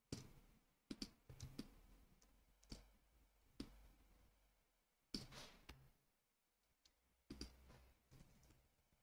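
Faint computer keyboard keystrokes: scattered sharp key clicks about once a second, some in quick clusters of two or three, as lines of code are re-indented.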